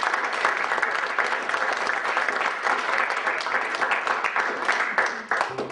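Audience applauding, a dense steady clapping that thins out and fades near the end.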